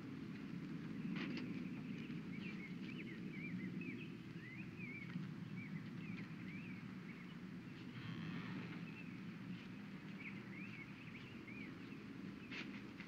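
Small birds chirping in quick short calls over a steady low outdoor rumble, with a sharp click about a second in and another near the end.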